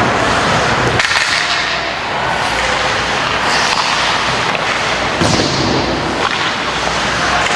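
Ice hockey game on the rink: a steady hiss of skates scraping the ice, with a few sharp knocks about a second in and again near five and six seconds.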